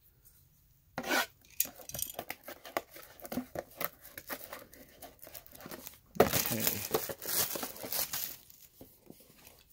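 Plastic shrink-wrap being slit and torn off a cardboard box of baseball cards, crinkling and crackling in fits and starts, loudest from about six to eight seconds in.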